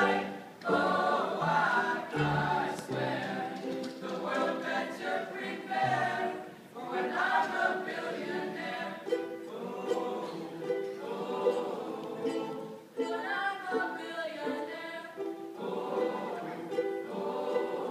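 Young men's choir singing a pop song together in harmony, with a few deep bass notes under the voices in the first seconds.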